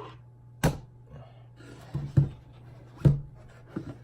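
Hard paintball marker parts and accessories being handled and set down: a few sharp clacks and knocks, about four in four seconds, over a steady low hum.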